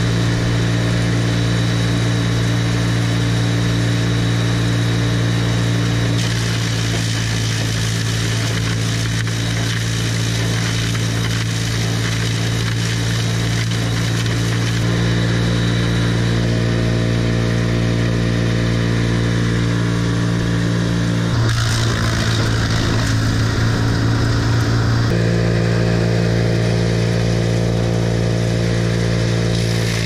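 Vermeer BC700 wood chipper's engine running steadily at high speed. From about 21 to 25 seconds in there is a louder, noisier stretch, as the machine shreds bamboo and blows it into a bucket fitted over its discharge chute.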